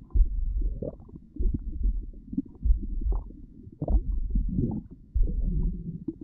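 A person's stomach growling: low gurgles and rumbles that come in swells about every second and a bit.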